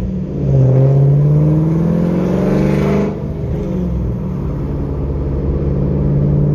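Camaro SS V8 with aftermarket headers accelerating, its note climbing for about two and a half seconds, then dropping suddenly about three seconds in and settling into a steady lower drone.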